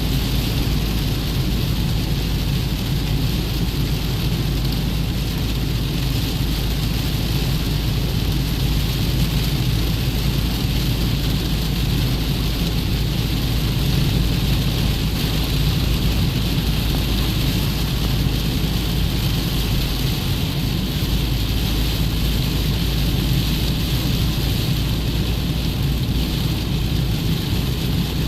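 Steady rain falling, with a constant low rumble underneath and no distinct thunderclaps.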